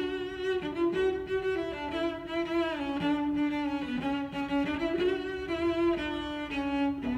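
Background music: a bowed string instrument playing a slow melody of long held notes with vibrato.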